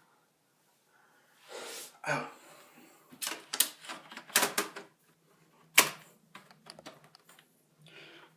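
Sharp plastic clicks and taps of a laptop's parts being handled and worked into place: a quick run of clicks, then one loud click just before the last couple of seconds.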